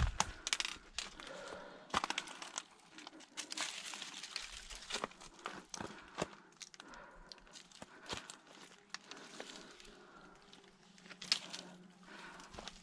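Footsteps crunching over dry leaves, pine needles and twigs, with irregular crackles and snaps.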